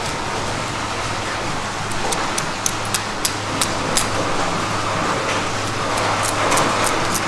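Knife cutting along a giant eel's backbone and rib bones on a wooden board, giving a string of short sharp clicks from about two seconds in, over a steady background hum and hiss from a fan or machinery.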